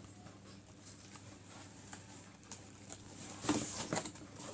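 Cardboard box and packaging being handled during an unboxing: light scattered taps and rustling, with a louder rustle about three and a half seconds in.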